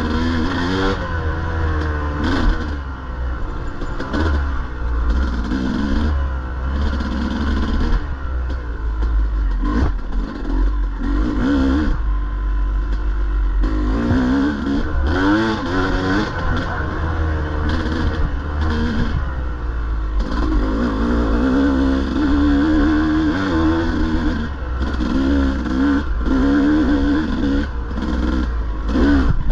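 Dirt bike engine revving up and down as it is ridden, its pitch rising and falling again and again, with occasional knocks.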